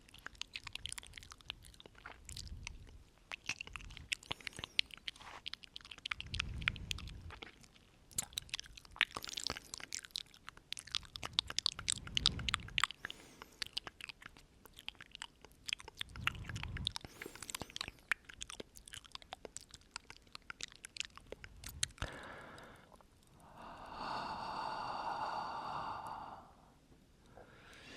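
Close-up wet mouth sounds: many quick tongue-and-lip clicks and smacks, with a few soft breaths. Near the end comes a held voiced sound lasting about two and a half seconds.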